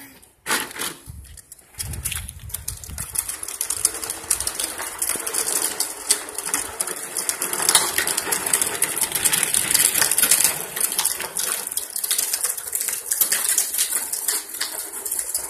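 Hard plastic wheels of a child's ride-on toy motorbike rolling over rough concrete: a continuous clattering rattle that starts about two seconds in.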